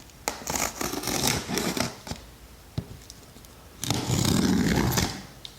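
A cardboard shipping box being opened by hand: packaging scraping and rustling in several short noisy bursts, a sharp click about halfway through, then a longer, louder stretch of rustling about four seconds in.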